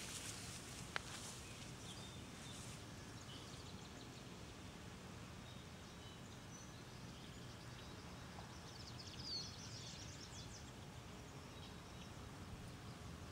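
Faint outdoor background noise with a few brief, high bird chirps about two-thirds of the way through, and a couple of light clicks in the first second.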